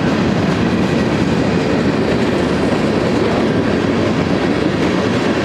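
Covered cement hopper cars of a freight train rolling past: a steady rumble of steel wheels on the rails.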